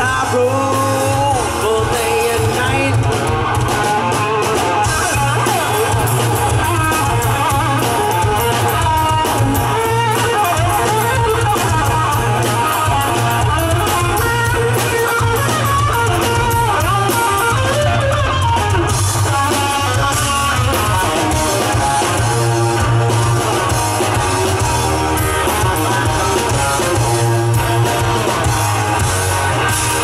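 Live rock band playing loudly through a PA, with electric guitars and a drum kit: a sound-check run-through.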